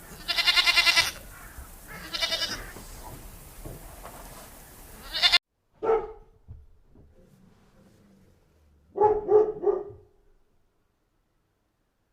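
A goat bleating twice, each bleat a quavering, pulsing cry. After an abrupt cut, a dog barks once and then three times in quick succession.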